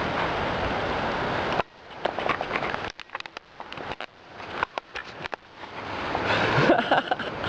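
Hailstorm: a dense steady rush of hail and rain that cuts off abruptly about a second and a half in, leaving scattered taps and drips, before the rushing noise builds again near the end.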